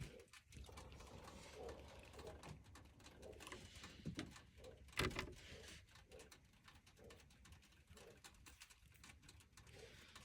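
Faint pigeon cooing, a run of short low coos repeating every second or so, with one sharp click about five seconds in.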